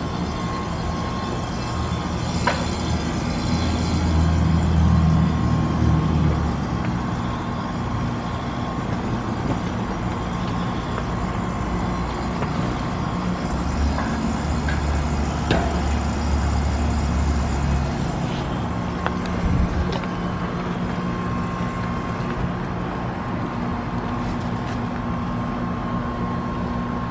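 RunTru heat pump outdoor unit running through a defrost cycle, its coil steaming: a steady mechanical hum and hiss, with a deeper rumble twice.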